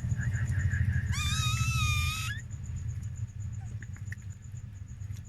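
Newborn chihuahua puppy crying: a faint rapid squeaking at first, then one high-pitched squealing cry about a second in that lasts about a second, over a steady low hum.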